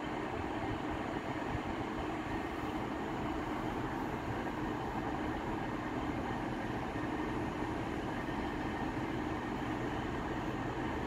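Class 150 Sprinter diesel multiple unit's underfloor diesel engines running at a steady hum, with no change in pitch or level.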